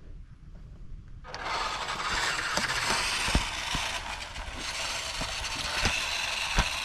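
WPL D12 RC truck setting off about a second in, its battery-powered electric motor and gearbox running at full throttle with a steady, noisy whir and its tyres rolling on rough concrete.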